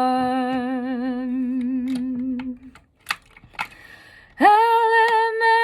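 A woman singing unaccompanied. She holds a long low note with a slight vibrato that ends about two and a half seconds in, two short clicks sound in the pause, and near the end she starts a higher held note.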